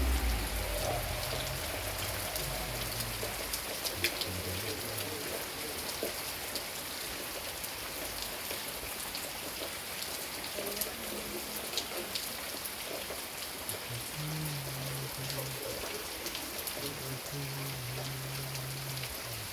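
Steady rain falling, with many individual drops ticking sharply on a hard surface over an even hiss. A faint low hum comes and goes.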